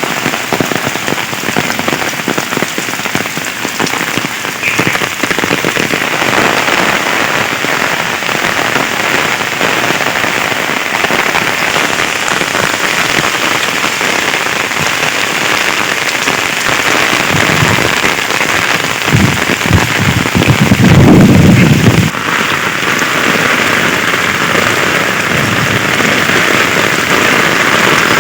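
Heavy rain falling steadily in a dense hiss. About two-thirds of the way through, a louder low rush lasts a couple of seconds and then cuts off suddenly.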